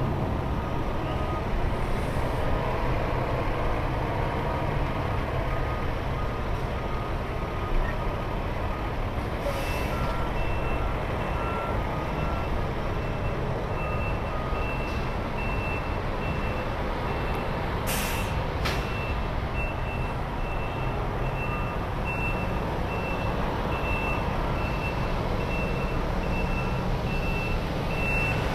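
Steady low rumble of idling diesel truck engines, with two reversing-alarm beepers sounding their regular beeps at different pitches, the higher one starting about a third of the way in. A short air-brake hiss comes about 18 seconds in, with a fainter one about 9 seconds in.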